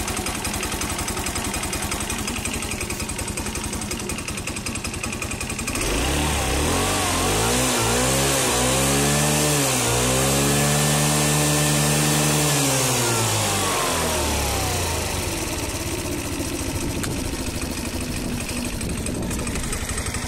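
Kymco Agility 50 scooter engine idling with a rapid knocking, then revved up about six seconds in, held high for a few seconds and let fall back to idle, where the knocking returns. The owner cannot place the knock and fears it comes from the crankshaft or camshaft.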